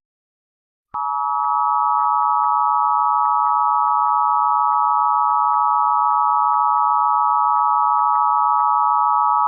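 Emergency Alert System attention signal, the steady two-tone alarm that comes before an emergency broadcast message. It is layered with pitch-shifted copies by the 'G-Major 4' effect, so it sounds as a harsh chord of several close tones. It starts about a second in, holds steady with faint clicks running through it, and cuts off abruptly at the end.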